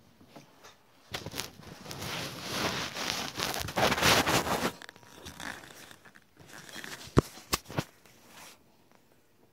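Rustling and rubbing on the phone's microphone as the phone is handled and moved, lasting a few seconds, then three sharp knocks near the end.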